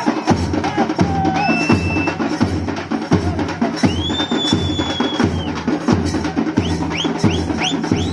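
Festival drum music with a steady beat of deep drum strokes. Above the drums, high tones sound: one held briefly, then a longer held one, then a quick run of short rising chirps near the end.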